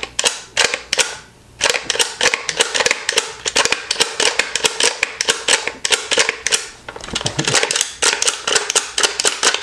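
Plastic one-click butter cutter squeezed over and over, its trigger mechanism clicking rapidly, several sharp clicks a second with a brief pause about a second in, as it pushes the stick of butter to the steel blade and drops slices.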